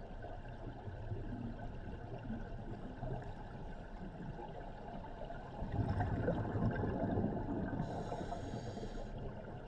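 Muffled underwater noise during a scuba dive, with a louder crackling rush of exhaled regulator bubbles from about six seconds in, lasting about a second and a half.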